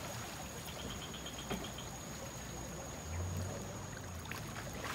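Shallow river water running steadily over stones, with a brief low hum just after three seconds in.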